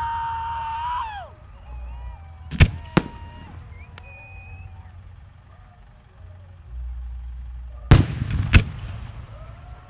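Aerial firework shells bursting with sharp bangs: two about half a second apart near the middle, and two more near the end. A high whistling tone runs for the first second or so, and fainter whistles come between the bangs.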